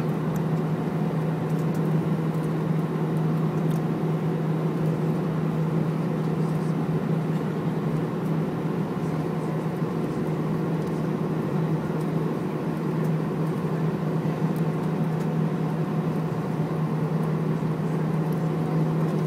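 Steady low hum inside an airliner's cabin as it taxis with its jet engines at idle, holding one even level throughout.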